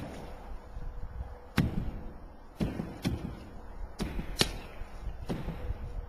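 Sledgehammers striking the wall of an old farm silo, about seven sharp irregular blows, some in quick pairs.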